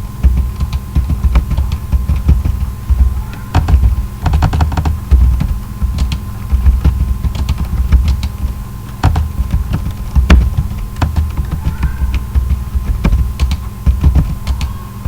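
Computer keyboard being typed on continuously in uneven bursts of quick keystrokes, at about 33 words per minute, each keystroke with a dull low thud.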